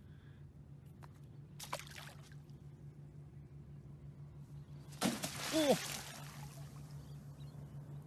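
Water splashing in the shallows about five seconds in, with two short cries over it that rise and fall in pitch, all above a low steady hum.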